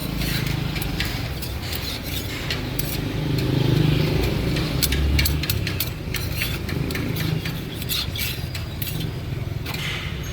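Street traffic: a motor vehicle engine rumbling past, loudest about four seconds in, with scattered light clicks and clatter.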